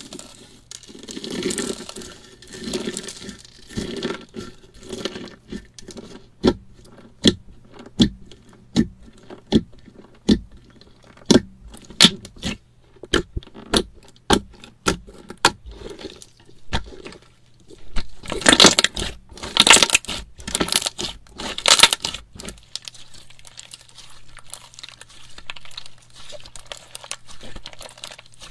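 Slime being squished and pressed by hand, close to the microphone: soft squelching at first, then a run of sharp pops and clicks about once a second, and a denser, louder burst of crackling pops about two-thirds of the way in.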